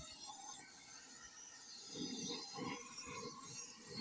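Cutting-torch flame hissing steadily as it heats the water jacket of a seized Farmall H cast-iron engine block, with a few soft handling sounds about two seconds in.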